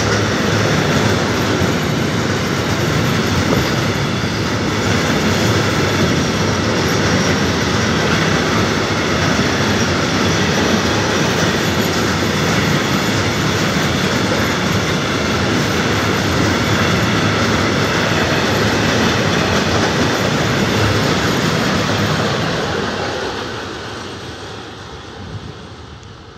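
A heavy 4,200-tonne freight train of wagons loaded with steel slabs rolling past close by: a loud, steady rumble of wheels on rail with thin high-pitched tones over it. It fades over the last few seconds as the end of the train passes and draws away.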